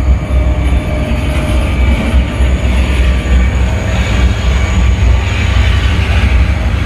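Diesel freight train passing: the locomotive's low throbbing rumble over the steady noise of the wagons rolling on the rails.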